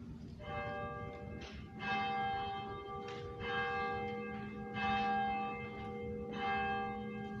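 Church bell ringing, struck about every second and a half, each stroke ringing on into the next.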